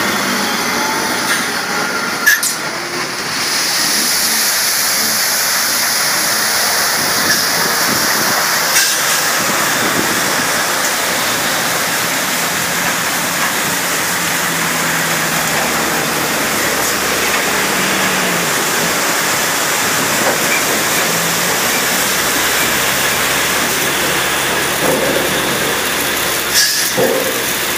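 Water jets of an automated truck wheel-and-chassis washer spraying hard against a slowly passing truck's wheels and underside: a loud, steady hiss that strengthens about three seconds in, with a few short knocks.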